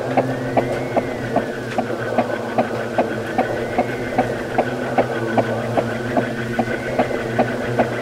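Ceiling fan running with a steady hum and a regular tick about two and a half times a second, under a faint tone that slowly rises and falls about every three seconds.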